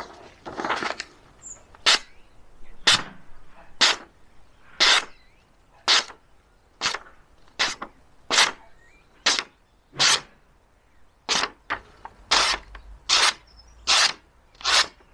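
Blade of a small neck knife making a run of about sixteen short slicing strokes, roughly one a second, each a brief scratchy swish, as its sharpness is tested.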